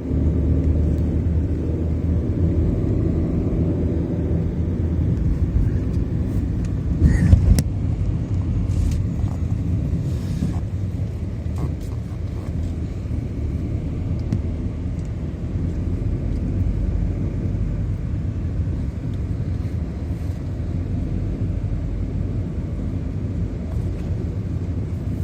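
A car on the road: steady low rumble of engine and tyres. It swells briefly and louder about seven seconds in, with a sharp click just after.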